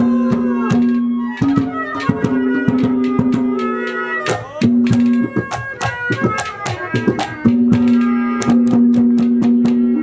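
Haryanvi ragni accompaniment: several clay-bodied hand drums played in fast, dense strokes, with a few sliding bass strokes, over a sustained held note that breaks off and resumes a few times.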